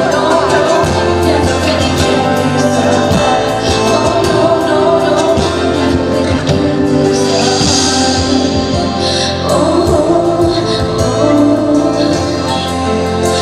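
A woman singing a slow pop ballad live, with held accompanying chords beneath her voice.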